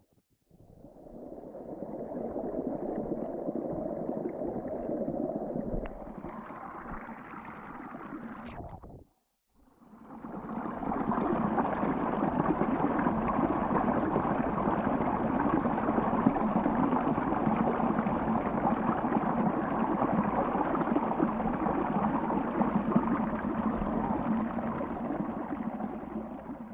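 Underwater sound effect: muffled gurgling and bubbling water. It fades in, cuts out for about a second around the middle, then returns fuller and louder.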